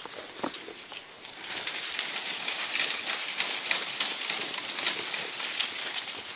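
Dry fallen maple leaves rustling and crackling in a dense patter of small ticks, growing busier about a second and a half in.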